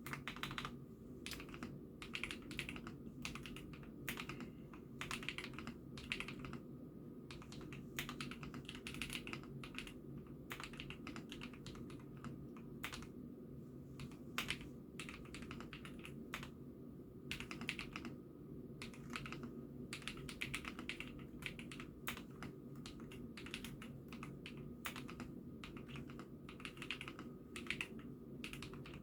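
Typing on an IKKI68 Aurora mechanical keyboard: continuous irregular keystrokes in quick bursts with short pauses, picked up by a phone microphone.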